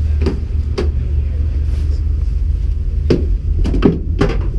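Sharp knocks and clicks of a race car's door being opened and a helmet and gloves being handled inside the bare cabin: two early on, then a quick cluster near the end, over a steady low rumble.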